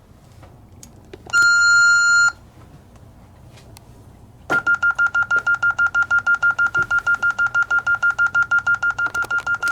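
Alarm keypad's electronic beeper sounding one long beep of about a second, then, a few seconds later, a rapid pulsing beep at the same pitch, about six beeps a second.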